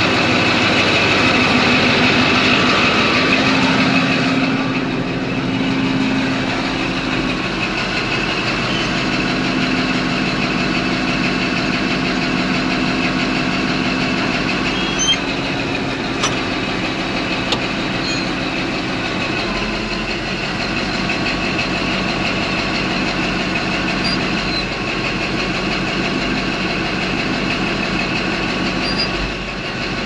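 Caterpillar D11 bulldozer's diesel engine running steadily, with a few light clicks about halfway through; heard from inside the cab in the later part.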